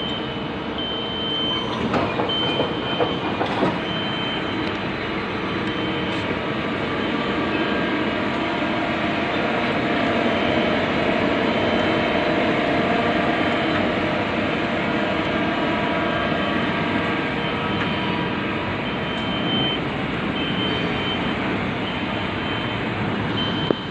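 Mori Seiki CL-20A CNC lathe running: a steady mechanical noise with several humming tones, swelling slightly midway. A high beep sounds in short repeated pulses at the start and again near the end, and a few sharp clicks come about two to four seconds in.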